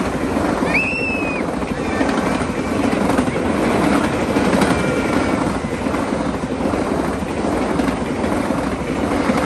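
Passenger coaches of a train passing close at speed: a steady rumble of wheels on the rails. A brief high squeal comes about a second in.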